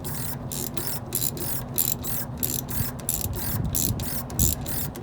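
Ratchet wrench clicking as it turns the slack adjuster on a truck's drum brake, about three clicks a second, over a low steady hum. The brake shoes are being adjusted toward the drum.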